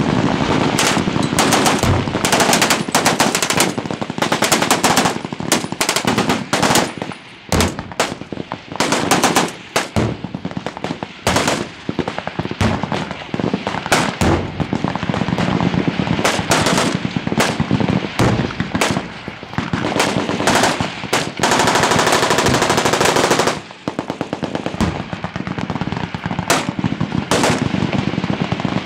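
Machine-gun fire in rapid automatic bursts, one after another with only short gaps, and one long unbroken burst about two-thirds of the way through.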